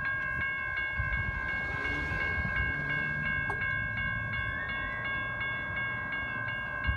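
Railroad grade crossing bell ringing with quick, regular strikes, its ringing tones held steady between strikes: the crossing is active for an approaching train. A low rumble of wind and distant noise runs underneath.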